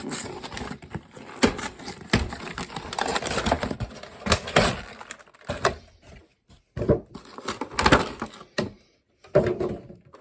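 Cardboard and plastic packaging being handled and opened: a dense run of rustling with quick clicks and taps, thinning after about five seconds to separate knocks and clicks.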